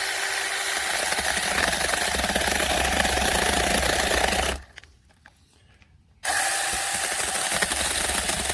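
Battery-powered 6-inch mini chainsaw (BEEDECK 20V) running, its electric motor and chain cutting through the wood of a small dead tree with a steady grinding buzz. The saw runs freely at first and bites into the wood about a second in. The sound cuts out abruptly for about a second and a half just past the middle, then resumes.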